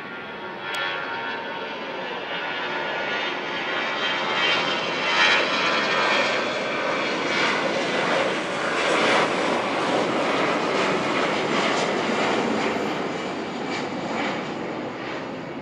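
Jet airliner passing close by, its engine noise swelling to a peak midway and then easing off slightly.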